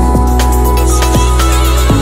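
Electronic background music with a steady beat over a deep, sustained bass line.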